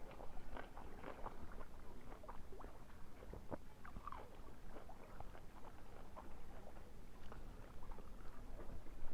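Close-up chewing and crunching of a crisp seafood tostada: irregular wet crunches and mouth smacks.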